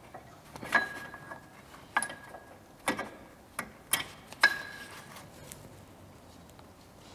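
Brake pads backed with anti-squeal shims being pushed into a car's brake caliper: about six sharp metallic clicks and knocks in the first half, a few with a brief ring, then quiet handling.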